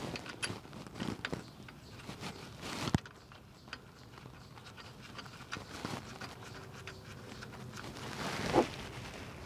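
Scattered metal clicks and knocks of a heavy truck driveshaft's U-joint being worked by hand into the transmission yoke, with a sharp click about three seconds in and a louder knock near the end.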